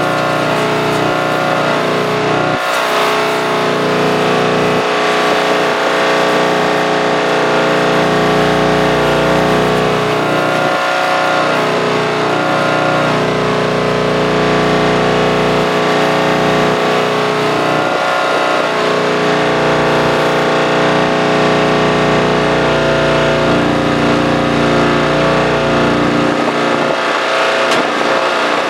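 An engine running steadily, its speed and pitch shifting every few seconds.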